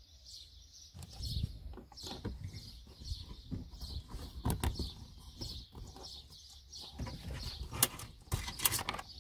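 Handling noise of a plastic boot trim panel and wiring: irregular knocks and rustles as the hands work the panel and feed a 12 V socket's wires through a hole in it, with a few sharper clicks near the end.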